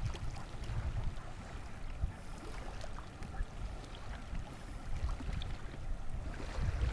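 Wind rumbling and buffeting on the microphone, with lake water lapping and trickling in small splashes.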